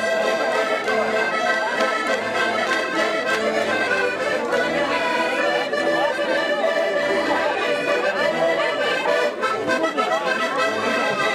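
Three accordions playing a traditional dance tune together in steady, held chords.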